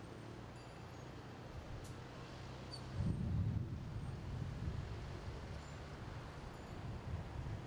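City road traffic heard from above, a steady low rumble that swells louder for about a second around three seconds in as a vehicle passes.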